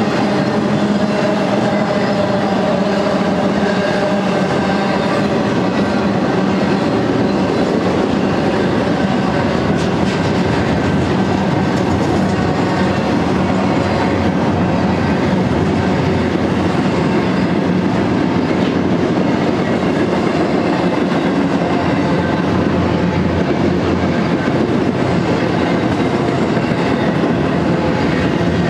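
Double-stack intermodal freight train's container-laden well cars rolling past, their steel wheels running on the rails in a steady, unbroken sound with a few held tones running through it.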